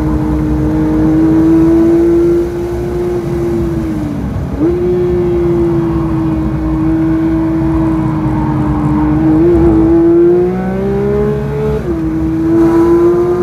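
Porsche 992 GT3's naturally aspirated flat-six at high revs on track, heard from inside the cabin. Its note drops in level about two and a half seconds in, dips and snaps back up on a downshift a couple of seconds later, and holds steady through the corner. It then climbs and falls back sharply on an upshift near the end.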